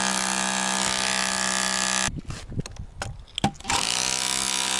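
Makita DHR202 cordless rotary hammer in hammer-only mode, its pointed chisel bit hammering into an old reinforced concrete slab. It runs steadily, stops about two seconds in with a few knocks of loose concrete, and starts hammering again near the end.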